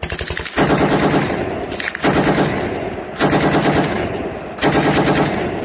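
Electronic sound effect of a toy M60 machine gun: back-to-back bursts of rapid machine-gun fire, each about a second long, with a buzzing tone under the rattle.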